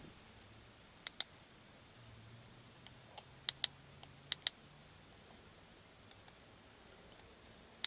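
Plastic buttons on a Wouxun KG-UV980P transceiver's keypad microphone being pressed, stepping a channel-name character. Three sharp click pairs, each a press and release, come about a second, three and a half seconds and four and a half seconds in, with a few fainter clicks, over a faint low hum.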